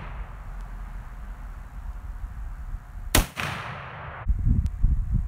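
A single shot from a scoped hunting rifle about three seconds in, its report echoing away before it cuts off suddenly about a second later. The rifle is being fired to sight in its scope.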